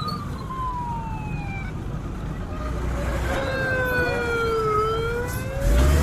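Two or more emergency-vehicle sirens wailing together, each tone slowly rising and falling over a few seconds, over a low engine rumble that grows louder near the end.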